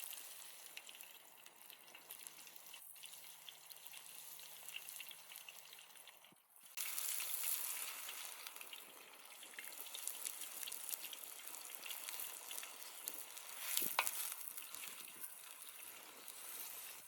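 Food sizzling and crackling as it fries. It breaks off about six seconds in and comes back louder, with one sharp click near the end.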